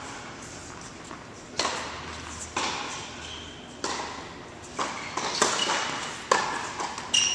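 A tennis rally: a tennis ball struck by racquets and bouncing on the hard court, sharp pops roughly once a second, each echoing in a large indoor tennis hall. A few short high-pitched tones ring out among the hits, the loudest near the end.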